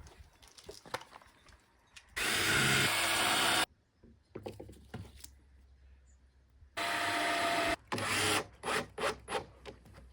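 Power drill driving screws into pallet wood. Two runs of about a second and a half and a second, then a string of short trigger bursts as the screw is seated.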